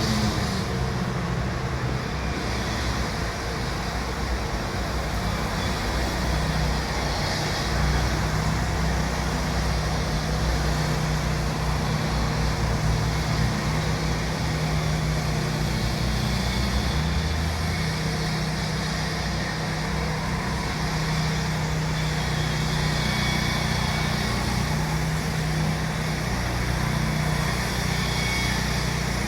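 A motor vehicle engine running steadily: a low, even hum over a haze of road noise.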